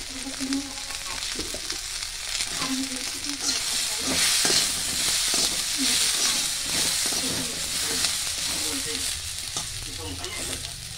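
Chopped vegetables sizzling as they are stir-fried in a metal wok, with a perforated metal spatula scraping and clicking against the pan. The sizzle grows louder about four seconds in.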